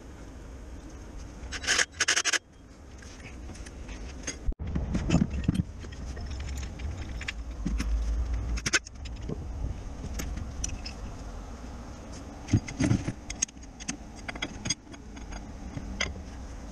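Metal tools and parts clinking, jangling and scraping as hands work on a car's gearbox and engine underside, with a brief loud metallic jangle about two seconds in and scattered sharp clicks.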